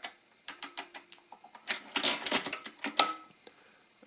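Brunsviga Nova II pinwheel calculator's setting levers being moved by hand to enter a number, making a series of sharp metal clicks. The clicks come closer together in the second half.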